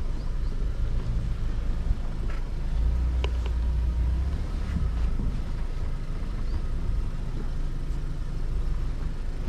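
Mahindra Thar 4x4 off-roading: a steady low engine and drivetrain rumble that swells about three seconds in, with a few short knocks and rattles.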